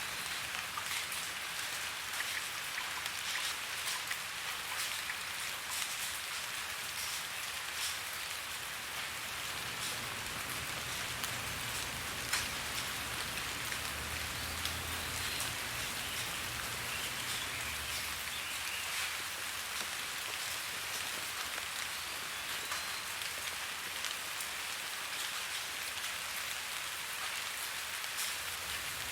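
Steady rain: an even hiss with many separate drops ticking on a hard surface. A low rumble joins it for several seconds midway.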